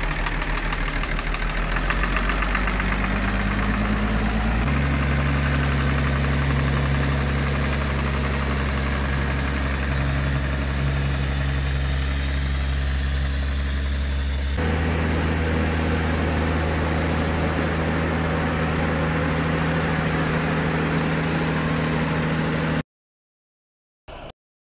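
New Holland tractor's diesel engine running steadily as the tractor moves slowly across a field pulling an implement. The engine note steps to a different pitch about five seconds in and again about fifteen seconds in, then the sound cuts off abruptly near the end.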